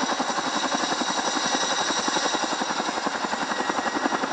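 Boeing Chinook tandem-rotor helicopter close overhead: rapid, even blade chop from its twin rotors, about a dozen beats a second, over a steady high turbine whine from its turboshaft engines.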